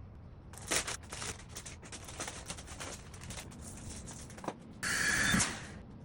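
Rustling and scraping of things being handled while cleaning, in a run of short irregular strokes, then a louder hiss lasting about half a second near the end.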